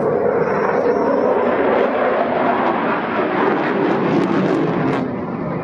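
Eurofighter Typhoon fighter jet flying a display pass, its twin jet engines making a loud steady rushing jet noise with a few sharp crackles around four seconds in. The noise eases off about five seconds in.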